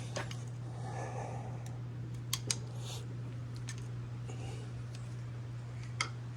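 A few light, sharp clicks and taps of metal tools or parts being handled, over a steady low hum.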